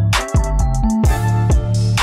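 Background music with a steady drum beat and deep bass.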